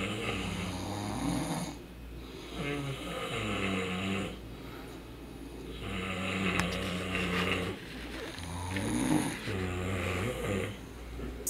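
A sleeping person snoring: a run of long, pitched snores, one every two seconds or so, with short gaps between.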